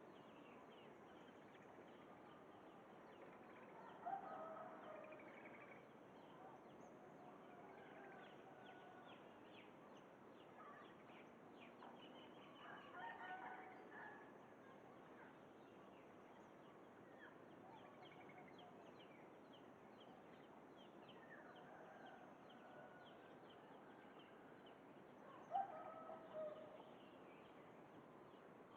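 Faint, distant rooster crowing, three times, over a background of small birds chirping.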